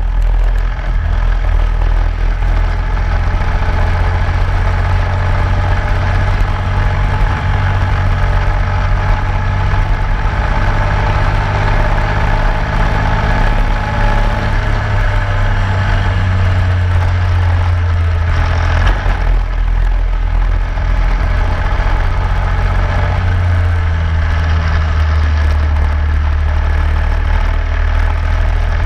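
Onboard engine sound of a racing vehicle at speed on a track, running continuously with a heavy low rumble and its pitch shifting as it accelerates and lifts, with a brief change about two-thirds of the way through.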